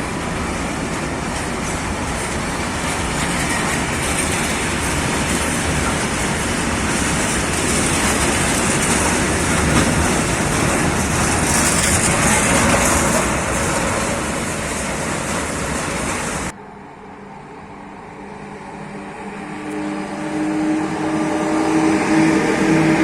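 Loud, steady rushing rumble of a moving vehicle, which cuts off abruptly about two-thirds of the way through. A quieter engine hum with a few steady tones follows and grows louder toward the end.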